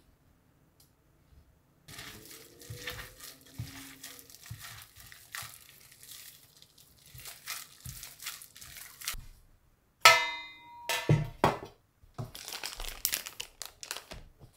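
A plastic-gloved hand squishing and kneading ground-meat gyoza filling in a glass bowl, the glove crinkling. About ten seconds in comes a sharp clink with a brief ring, then more plastic crinkling, as from handling a packet of gyoza wrappers.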